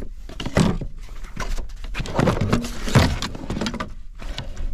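Irregular knocks, clatter and rustling of gear being handled close to the microphone, loudest about two and three seconds in.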